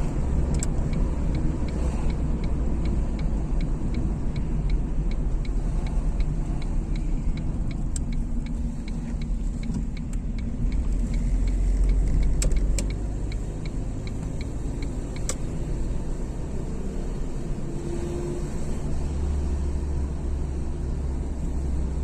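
Car driving, heard from inside the cabin: steady engine and road rumble, with a light regular ticking about three times a second through the first ten seconds or so. The rumble eases a little about 13 seconds in.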